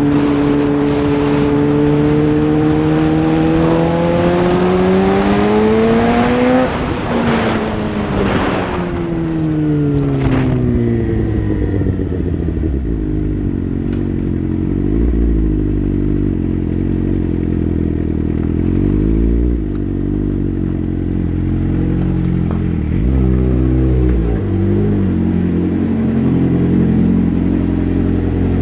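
Suzuki GSX-R 600 inline-four engine heard from on the bike. For the first six or so seconds the revs climb under acceleration with strong wind noise, then fall as the throttle closes. After that the engine runs at low revs, rising and falling several times, and settles into a steady low note near the end.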